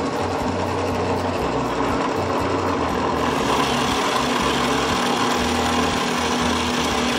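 Bench drill press motor running steadily while a 35 mm Forstner bit bores into angico branco hardwood. The cutting noise grows about three seconds in as the bit bites deeper. The motor holds its speed under light feed pressure.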